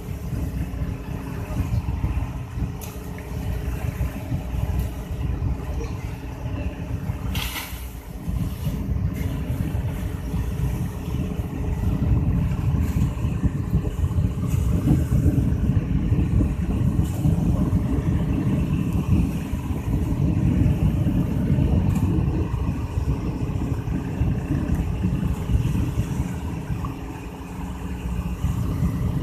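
Fishing boat's inboard engine running steadily underway, a low, constant rumble. A single short knock about seven and a half seconds in.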